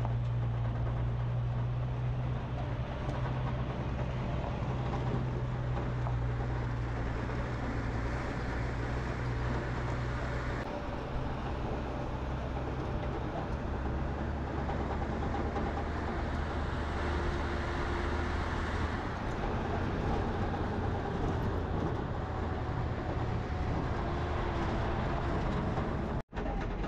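Steady running noise of a vehicle in motion: a low hum under an even rushing noise. The sound changes character about ten seconds in and drops out for a moment near the end.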